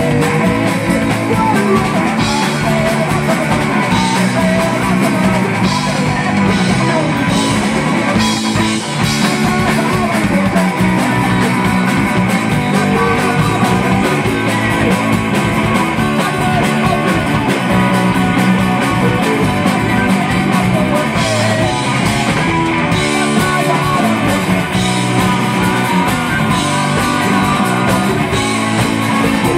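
Live rock band playing loudly: electric guitar over a drum kit, with a singer's voice.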